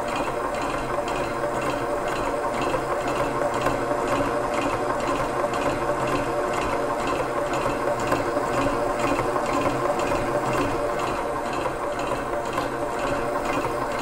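Innofood KT7600 stand mixer running steadily at speed 6, its motor humming while the silicone-edged beater goes round the bowl with a fast, regular rhythm, creaming butter and sugar.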